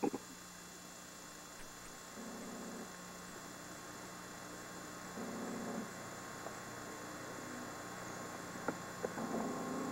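Steady electrical hum and hiss from an old camcorder's tape recording, broken three times by a short low buzz about half a second long.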